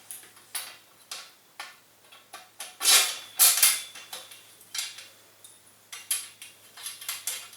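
Metal parts being fitted by hand: irregular small clinks and knocks of bolts, washers and metal tubes, with the loudest cluster about three seconds in.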